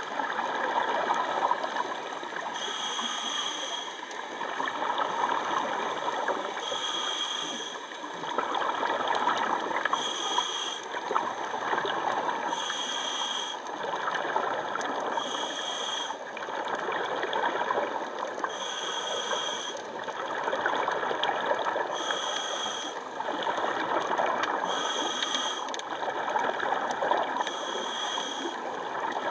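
Scuba diver breathing through a regulator underwater. A short, high hiss on each inhale comes about every three seconds, alternating with bubbles burbling out on each exhale.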